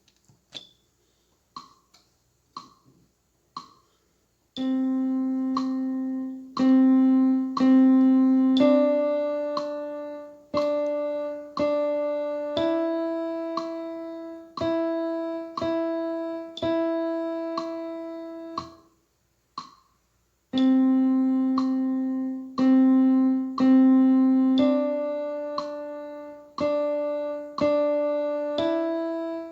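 Keyboard playing a simple one-line melody on middle C, D and E, mixing long held notes with short ones, after a few faint ticks. About two-thirds of the way in the tune stops for a rest of a second or so, then begins again.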